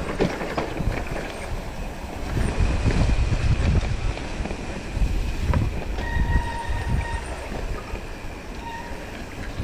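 Mountain bike rattling and rumbling down a rough, muddy dirt trail at speed, with wind buffeting the handlebar-mounted camera's microphone. A thin steady whine comes in for about two seconds, about six seconds in.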